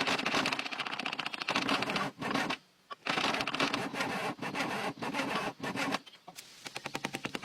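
Starter cranking the 1988 Scania dump truck's diesel engine after 18 years standing, a rapid clicking chatter in two bursts with a short break about two and a half seconds in; the engine has not yet caught.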